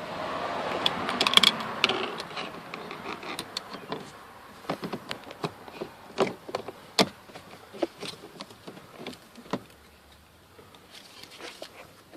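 Hands working on a car's plastic interior door trim panel: a couple of seconds of scraping and rustling, then a run of irregular sharp clicks and knocks that thins out near the end.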